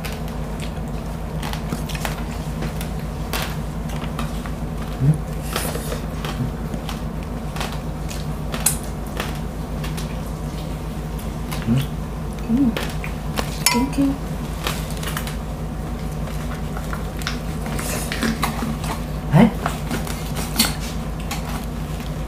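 Scattered clicks, taps and light crackles of a knife and cutlery working a whole crispy roast suckling pig (lechon) as it is eaten, over a steady low hum.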